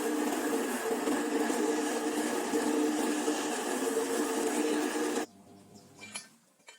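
Electric power tool motor running steadily with a constant whine, cutting off abruptly about five seconds in, followed by a few faint clicks.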